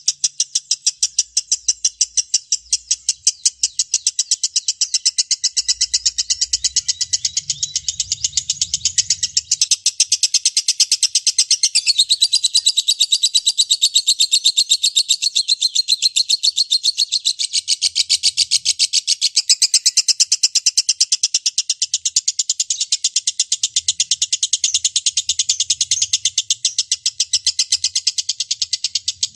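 Lovebird giving a long ngekek: an unbroken chattering trill of rapid, evenly spaced high chirps, several a second, that carries on without a pause.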